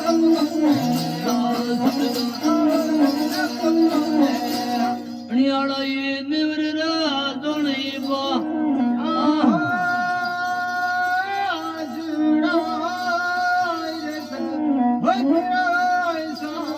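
Rajasthani devotional folk song music: a melody of long, wavering held notes over a steady low drone.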